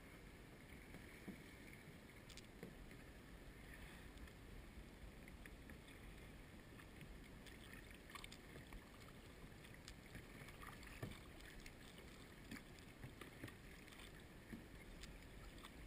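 Near silence: faint water lapping and small, scattered splashes and drips from a kayak paddle being stroked through calm sea.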